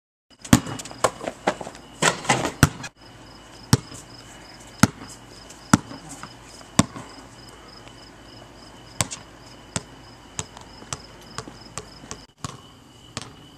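A basketball bouncing on a hard outdoor court: a quick run of bounces, then single bounces about a second apart. Near the end it bounces loose, the bounces coming quicker and quieter as it settles. Crickets chirp steadily underneath.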